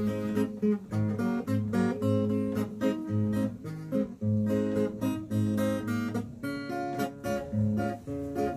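Acoustic guitar playing an instrumental with no singing: chords strummed and picked in an even rhythm, about two a second.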